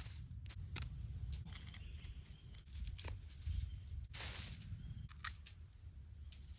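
A knife clicking and scraping against halved pears as their cores and seeds are carved out, in a string of short strokes with one longer scrape about four seconds in, over a low rumble.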